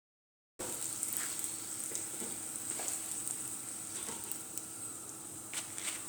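Flattened green plantain slices frying in hot oil in a small pot, with a steady sizzle and scattered sharp crackles, for their second, crisping fry. The sizzle starts abruptly about half a second in.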